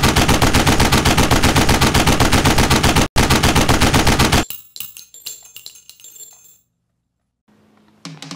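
Machine-gun fire sound effect: a loud, even burst of about ten shots a second with a brief break about three seconds in, stopping abruptly about four and a half seconds in, followed by scattered fading clicks and crackles. After a moment of silence, guitar music starts near the end.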